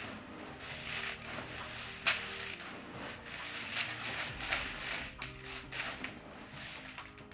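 Hands mixing trophy fish feed pellets with cream-style corn in a bucket, a wet, gritty squelching and rustling in repeated irregular strokes.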